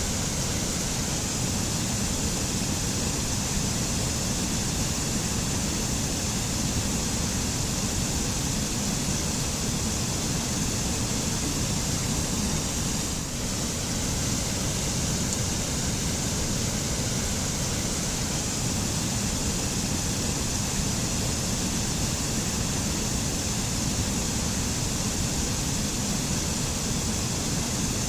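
Waterfall: a constant rush of falling water, steady and unbroken, with only a slight dip about halfway through.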